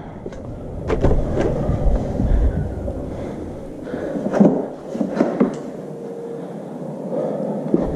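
Footsteps with scattered knocks and clicks as a house door is opened and shut and a tool bucket is picked up. A low rumble on the microphone runs through the first three seconds or so.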